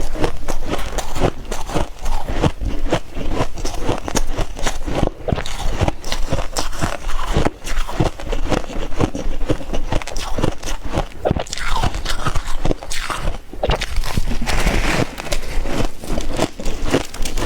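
Close-up biting and chewing of freezer frost: a dense run of irregular, crisp crunches that never lets up.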